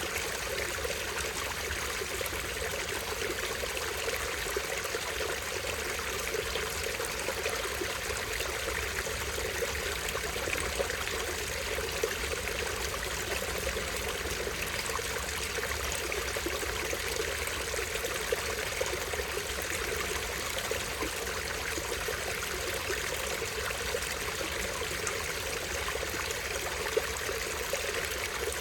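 Small stream running, a steady unbroken splash and trickle of falling water.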